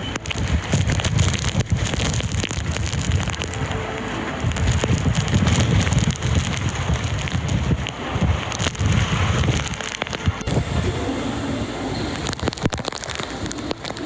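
Heavy typhoon rain falling on a wet street, with strong gusting wind buffeting the microphone in uneven surges.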